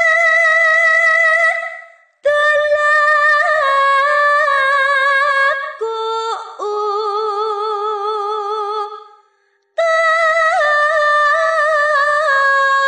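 Solo female voice singing a slow Javanese sinom melody in long held, wavering notes. It breaks off briefly about two seconds in and again after about nine seconds.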